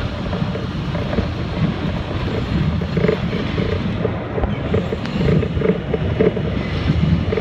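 R32 subway train running along an elevated steel structure: a steady rumble of wheels on rail, with irregular clacks from the track.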